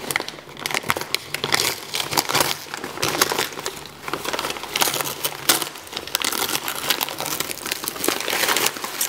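Gift-wrapping paper crinkling and tearing as a present is unwrapped by hand, a dense run of irregular crackles.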